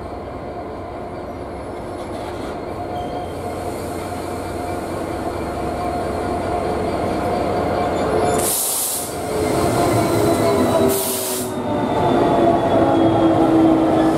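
Class 66 diesel-electric locomotive, with its two-stroke EMD V12 engine, running slowly past at close range and growing steadily louder, with a steady drone. Two short bursts of high hiss come a little over halfway through and again about two and a half seconds later.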